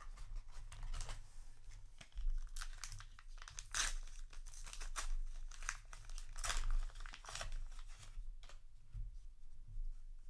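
Trading card packaging being torn open and crinkled: irregular crackling and tearing of plastic wrap and booster pack wrappers being handled.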